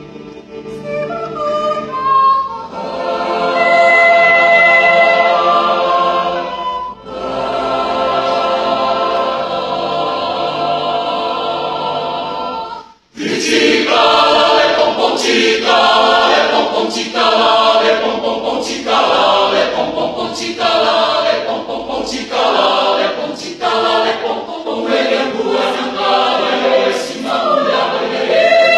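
A choir singing unaccompanied in several parts: long held chords at first, then, after a brief break near the middle, a livelier passage with strongly accented beats about once a second.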